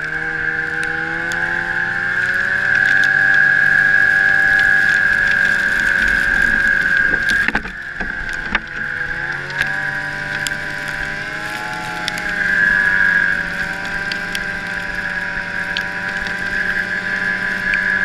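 Arctic Cat ZR500 snowmobile's two-stroke engine running under way, its pitch rising and falling with the throttle over a steady high whine. It eases off briefly about halfway through, then picks up again.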